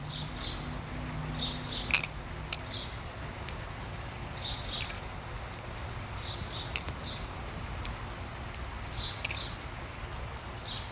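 Balisong (butterfly knife) being flipped: scattered light clicks as the handles swing and knock together. A bird chirps repeatedly in the background.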